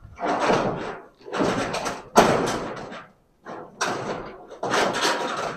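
Long ribbed sheet-metal ceiling panel scraping and rattling against the wooden truss chords as it is pushed up into place, in about six scraping strokes of about a second each.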